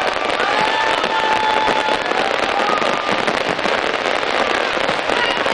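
Aerial fireworks display going off in dense, continuous crackling with rapid pops and bangs, and a few long whistling tones over it.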